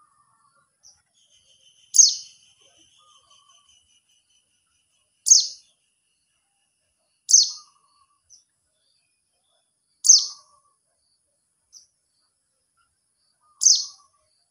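Caged mountain white-eye ('Monty' pleci) giving five sharp, high calls a few seconds apart, each falling quickly in pitch, with a faint thin twitter after the first one: the contact call used to draw in other white-eyes.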